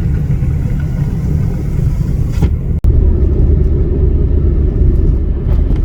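Steady low rumble of a car driving, heard from inside the cabin. It breaks off for an instant a little before the middle and comes back louder.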